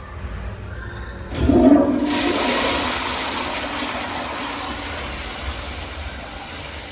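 A Kohler restroom fixture flushing: a sudden surge about a second in, then a loud rush of water that slowly fades.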